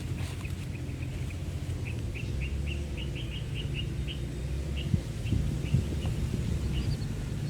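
A small bird chirping: a string of short high chirps, a few a second, over a steady low rumble.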